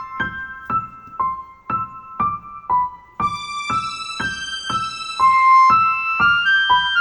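Background music: a light electric-piano melody, one note about every half second, sparser for the first few seconds and fuller after that.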